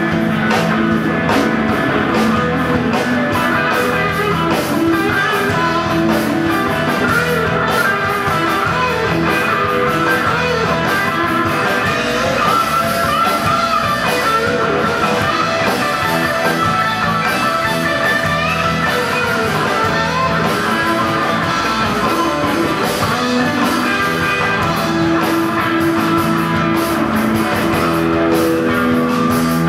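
A live rock band playing: two electric guitars, electric bass and a Pearl drum kit. A lead guitar line wavers over the rhythm, with no singing.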